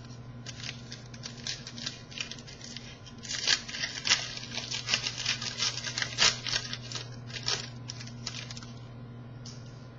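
Paper and foil rustling and crinkling from a trading-card pack being torn open and its cards handled: a quick run of short crackles, busiest in the middle, over a faint steady low hum.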